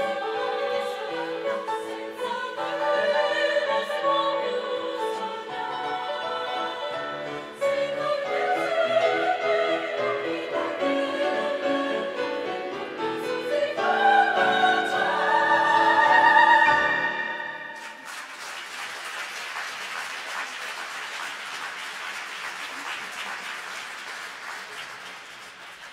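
Women's choir singing an operetta fox-trot, building to a long high held final note, then breaking off about 18 seconds in into audience applause that gradually fades.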